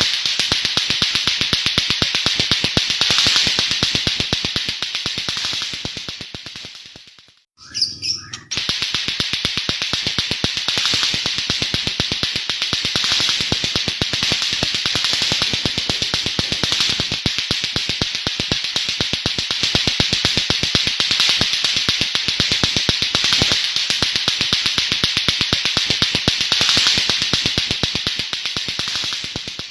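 White-rumped shama (murai batu) singing a harsh, rapid-fire 'nembak' song, a fast string of clicks like the clacking of lato-lato toy balls. It fades out about seven seconds in, breaks off briefly, then starts again and fades near the end.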